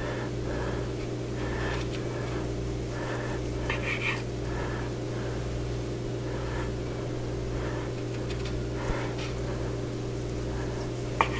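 A long slicing knife sawing back and forth through smoked beef brisket on a cutting board: soft rasping strokes, about two a second, over a steady low hum.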